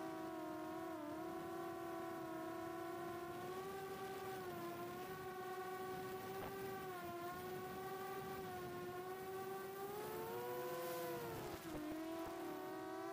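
Whine of a 4-inch FPV quadcopter's HGLRC 1303.5 4500kv brushless motors in flight, a steady multi-toned hum whose pitch drifts gently with throttle. About ten seconds in the pitch rises and falls back, then dips for a moment.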